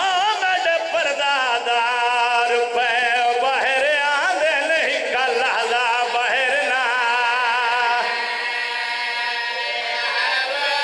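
A man's voice chanting a devotional verse into a microphone in a drawn-out melodic style, the long notes wavering with heavy vibrato; in the last few seconds he holds a steadier note.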